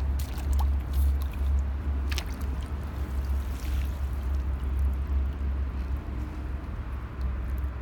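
A carp splashing into pond water as it is tipped out of a landing net, with a sharp splash about two seconds in and water dripping and lapping afterwards, over a steady low rumble.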